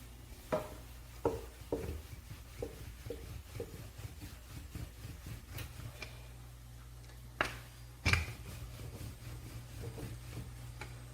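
A wooden rolling pin knocking and rubbing on a board as chapati dough is rolled out: a run of light knocks about half a second apart, then a few sharper knocks later on.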